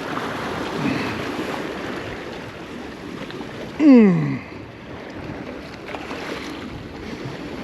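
Wind and surf noise, with a man's wordless falling groan about a second in and a louder, longer falling groan about four seconds in.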